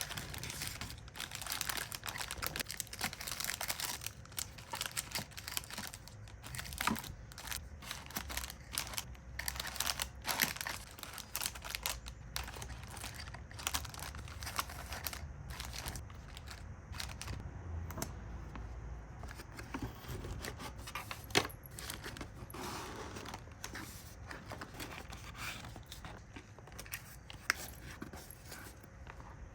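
Plastic packaging handled by hand: steady crinkling and rustling with many small clicks and taps.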